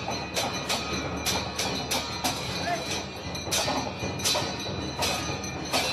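Dense crowd din filled with sharp metallic clangs, about two to three a second, leaving a steady high ring behind them, as of bells or hand cymbals struck during temple worship.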